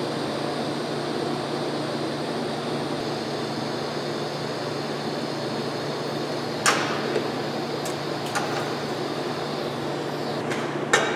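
TIG welding arc tacking and welding square-tubing door frames: a steady hiss over a constant machine hum, the arc cutting out near the end. A few sharp clicks break in, the loudest about two-thirds of the way through.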